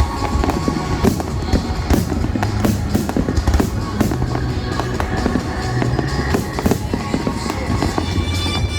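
Fireworks display: aerial shells bursting in a dense, continuous run of sharp bangs and crackles, with music playing along underneath.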